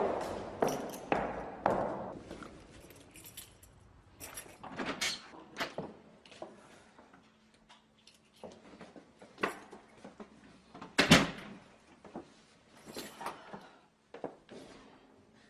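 A run of sharp knocks and thuds, closely spaced at first and dying away within about two seconds, then scattered knocks and rattles, with the loudest single thud about eleven seconds in.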